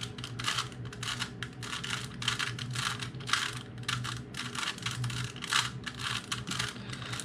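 Rubik's Cube being twisted by hand: a fast, irregular run of plastic clicks and clacks as its layers turn, over a low steady hum.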